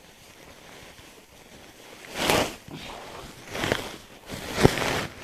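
Dry wheat straw rustling as it is shaken out of a sack onto a plastic tarp, in several short bursts from about two seconds in, with a sharp tap near the end.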